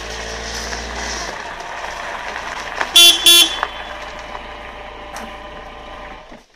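A car horn gives two short toots about three seconds in, over the steady running noise of a Volkswagen Golf hatchback rolling in over gravel. The engine noise cuts off near the end.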